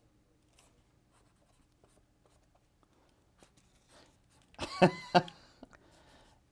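Pen drawing on paper, a faint light scratching, then a short laugh a little under five seconds in.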